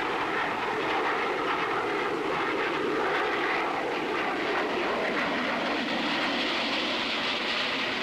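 Aircraft engines running in flight: a steady rushing noise with no distinct beats, growing a little brighter and more hissing over the last few seconds.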